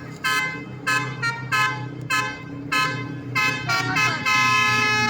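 Bus's basuri telolet horn sounding a quick string of short toots, then, about four seconds in, a longer run of changing notes like a tune.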